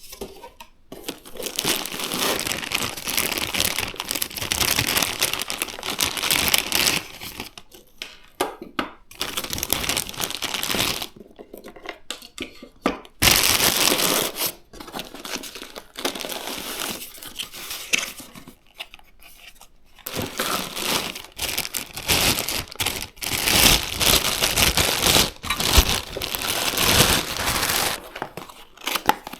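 Packaging being crinkled and torn by hand in bursts with short pauses, as PC components are unboxed.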